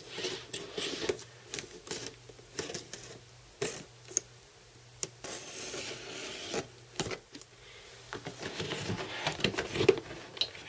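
Cardboard model-kit box being handled and opened: scattered taps, rubs and scrapes of cardboard, with a longer sliding scrape about five to six seconds in and busier handling near the end.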